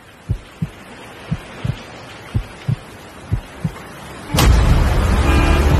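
Heartbeat sound effect from a film score: a low double thump about once a second, four times. About four seconds in, a sudden loud low rumble cuts in with a car horn blaring over it.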